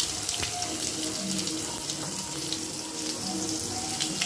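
Sliced onion, dried red chilli and tempering spices sizzling in groundnut oil in an aluminium kadai, with a few faint crackles.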